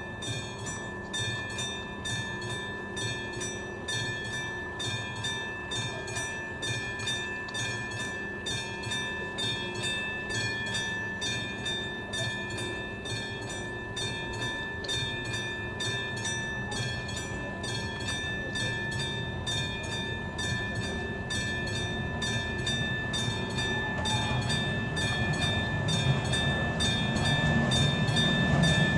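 Class 744 diesel locomotive hauling a freight train, approaching from a distance, its engine growing steadily louder towards the end. A regular high chirping pulse, about two or three a second, runs throughout.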